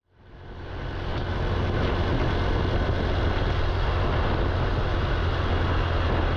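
Small step-through motorbike being ridden along a road: steady engine and road noise mixed with wind rushing over the microphone, fading in over the first second or so.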